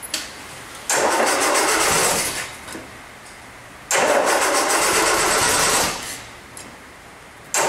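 1961 Land Rover's freshly rebuilt four-cylinder petrol engine being cranked on the starter in three bursts: about a second in, about four seconds in, and again near the end. It tries to fire but doesn't pick up and run.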